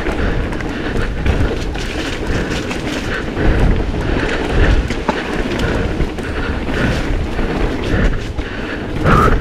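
Propain Rage 3 CF downhill mountain bike rattling and clattering over rough trail at speed, with a constant rush of tyre and ground noise and many sharp knocks from the bike being shaken.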